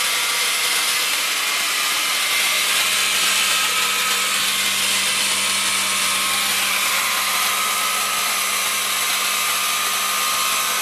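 Band saw cutting through a thin galvanised steel sheet: the blade makes a steady, loud hissing noise through the metal over a low motor hum.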